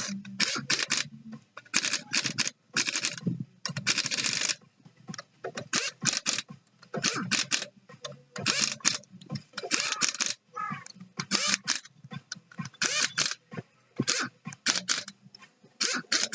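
Irregular clusters of short, sharp clicks and scraping from hand work on jet ski parts, over a low hum.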